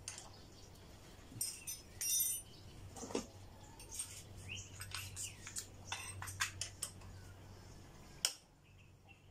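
Hand tool clicking and tapping against the front brake caliper bolts as the caliper is unbolted, a series of small metallic clicks with one sharp click about eight seconds in. Faint short chirps are heard in the middle.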